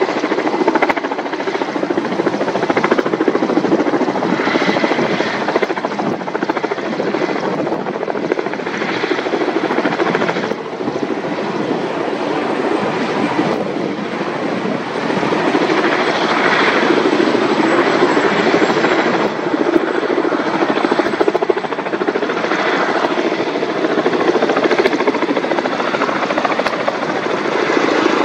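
Kamov Ka-32 coaxial-rotor helicopter hovering low over the sea, its turbines and twin rotors running loudly and steadily while it fills a slung water bucket, the noise swelling and easing slightly as it holds position.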